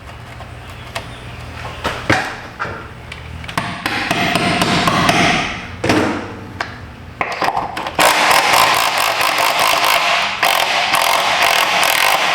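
Scattered knocks and clatter of hand tools being handled, then a ratchet wrench clicking rapidly and continuously from about eight seconds in as a rounded bolt is worked.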